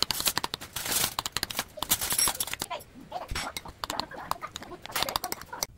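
Metal spoon stirring a thick seasoning sauce of chopped onion, chili powder and oil in a ceramic bowl: quick, repeated clinks and scrapes of spoon against bowl, busiest in the first couple of seconds.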